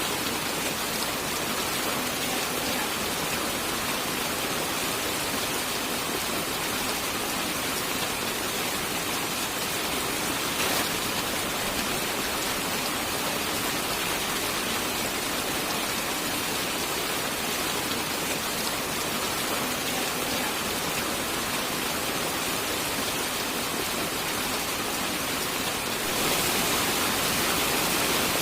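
Steady heavy rain, an even hiss of drops on a surface with little low rumble. One sharp drop or tap stands out about eleven seconds in, and the rain grows louder for the last two seconds.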